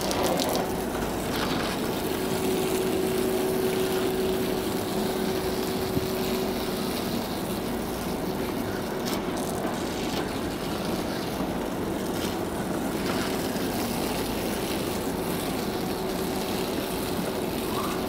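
Water from a garden hose spraying onto the metal grille and condenser fins of a window air conditioner, a steady splashing rush, with a faint steady hum underneath.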